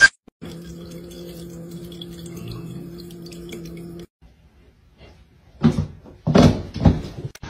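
Small pet water fountain's pump humming steadily with water trickling. After a short quiet gap, several loud sudden bursts of noise come near the end as two cats leap and tussle on a wooden floor.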